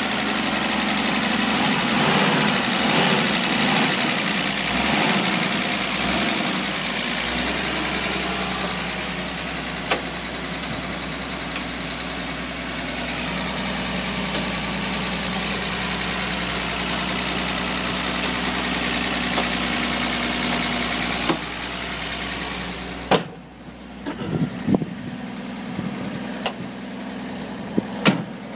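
Dodge A-100 van's engine idling steadily, heard up close at the open engine bay. About 23 seconds in the engine sound drops away sharply, followed by a few sharp knocks.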